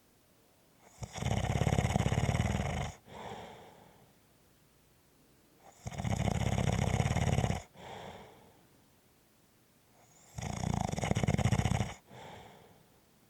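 Snoring in slow, regular breaths: three long, rattling snores about four and a half seconds apart, each followed by a shorter, softer breath.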